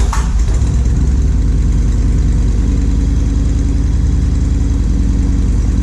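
Yamaha Road Star 1700cc V-twin motorcycle engine idling steadily with an even low pulse, just after being started.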